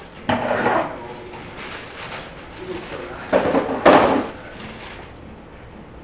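Plastic bread bag rustling and crinkling as it is handled, in two bursts: one about half a second in and a longer one from about three to four seconds in.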